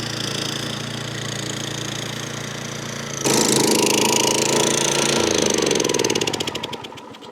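Gasoline engine of a remote-controlled tracked lawn mower running steadily. It abruptly gets louder about three seconds in, then slows and dies away near the end as it is shut off.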